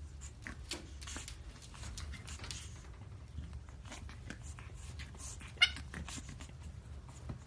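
Pug puppy pawing and scrabbling at a mirror, its claws making light scratches and taps on the glass and carpet. About five and a half seconds in comes one brief, sharp, high squeak.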